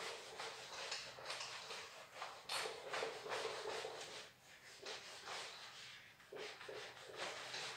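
Whiteboard eraser rubbing across a whiteboard in quick repeated strokes, a scratchy wiping sound.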